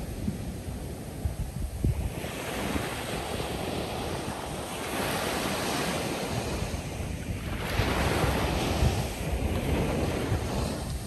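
Ocean surf breaking on a beach shoreline: waves crash and wash up the sand in rolling surges, one every few seconds.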